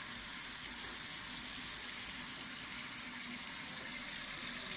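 Steady rushing of water and rice pouring from an automatic rice washer's curved stainless outlet pipe into its steel tank, with a faint low hum from the machine coming and going.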